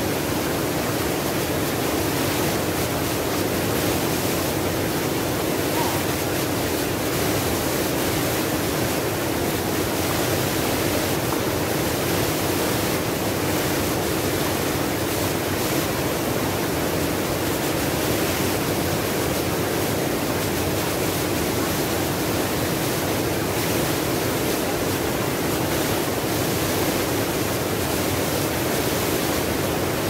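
Small waterfall cascading between boulders into a rocky pool: a steady, loud rush of falling and churning water.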